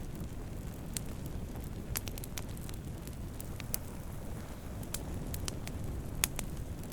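Wood campfire burning: a steady low rumble of flames with sharp, irregular crackles and pops of burning wood, the loudest pop about six seconds in.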